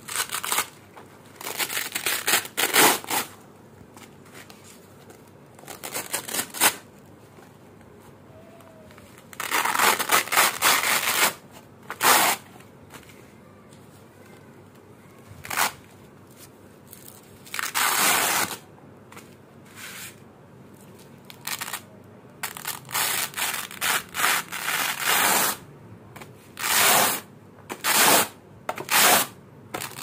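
Black hook-and-loop (Velcro) strips pulled apart again and again, each peel a crackling rip. There are more than a dozen rips, some short and some drawn out over a second or two, with pauses between them.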